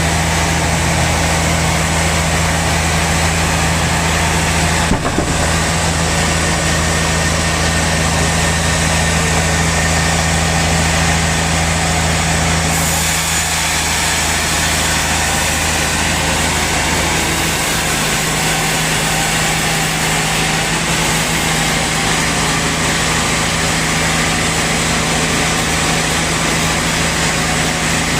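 Sawmill saw running steadily under power, a constant mechanical hum under a dense hiss. There is a brief knock about five seconds in, and the deepest part of the hum drops out about two-thirds of the way through.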